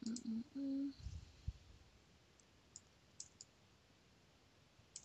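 A brief hummed "mm-hmm" from a woman, then about five soft, sparse computer mouse clicks as Illustrator is operated.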